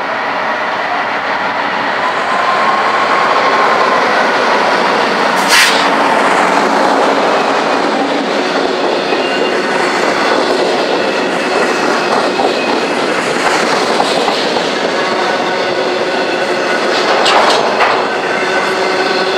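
A Class 60 diesel locomotive passing at speed with its Mirrlees eight-cylinder engine running, followed by a long train of bogie coal hopper wagons. The wagon wheels keep up a steady rumble and clatter on the rails, with faint thin wheel squeal and two sharp clacks over rail joints or pointwork.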